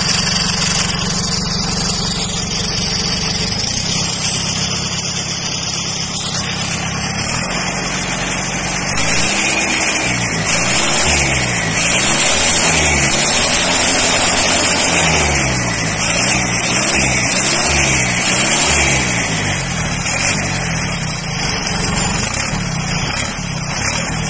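Arjun tractor's diesel engine with an aftermarket turbocharger, running steadily and then revved up and down about once a second for roughly ten seconds before settling back. A thin high whistle glides up and down above the engine at times.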